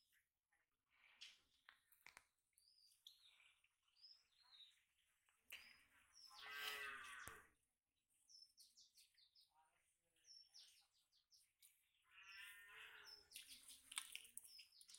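Faint bird chirps, short high calls repeated every second or so, with two brief, louder voice-like sounds about six and twelve seconds in.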